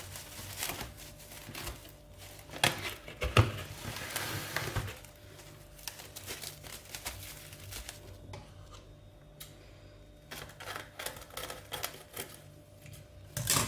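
Plastic cling film crinkling and crackling as it is pulled and wrapped tightly around a stack of baked pizza bases. The irregular crackles are thicker at first, thin out midway, then pick up again, with a louder crackle near the end.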